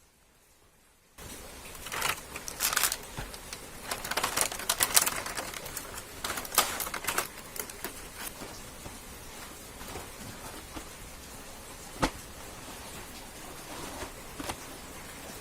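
A toy train's pieces being handled: irregular clicks and rattles over a steady hiss that starts about a second in. The clicks come thickest in the first few seconds, with one sharp click near the end.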